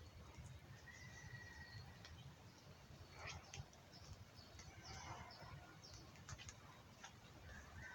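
Faint birds chirping in short scattered calls, over a steady low rumble of strong wind on the microphone, with a few light clicks.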